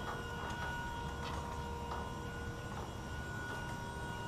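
Towable boom lift's hydraulic drive running as the boom and bucket move, a steady whine over a low rumble, with a few light clicks.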